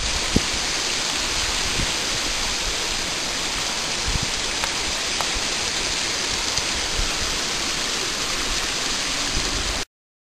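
Steady rush of running water, a stream in the flood-scoured gully, with a few faint knocks of stones underfoot; it cuts off abruptly near the end.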